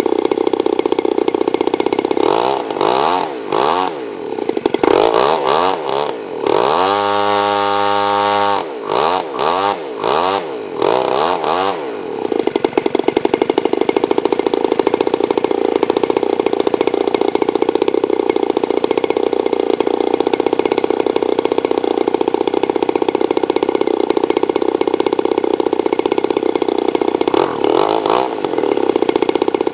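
RCGF 60cc rear-exhaust two-stroke gasoline engine running on a test stand with a propeller while its carburetor is adjusted with a screwdriver. From about two seconds in until about twelve seconds in, its speed swings up and down several times, then it settles into a steady run, with one more brief dip near the end.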